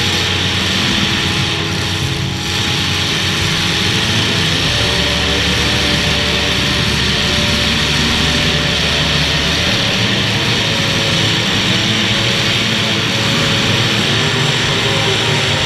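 Several demolition derby cars' unmuffled engines running hard together, a loud, steady mechanical racket with overlapping engine notes that shift in pitch as the cars rev.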